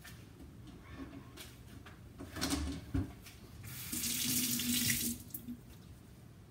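Kitchen tap turned on and running into the sink for about a second and a half, with a steady tone under the hiss of the water. A couple of sharp knocks come just before it.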